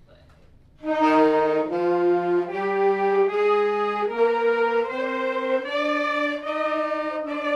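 A beginners' saxophone section playing a scale together in held notes. They come in together about a second in, climb one step at a time, each note just under a second long, and turn back down near the end.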